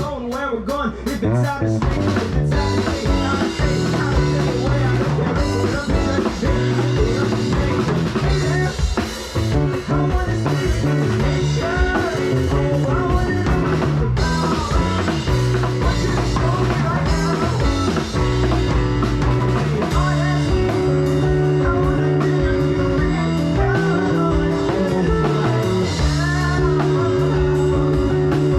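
Live rock band playing an instrumental passage: drum kit, bass and electric guitar.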